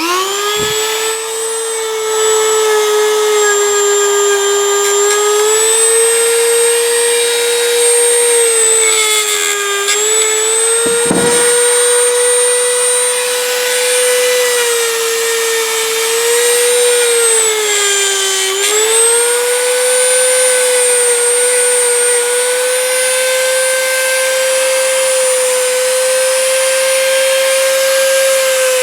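Power tool with a wire wheel starting up and running with a steady high whine that sags in pitch several times as the steel crimpers are pressed against the wheel to wire-brush them clean.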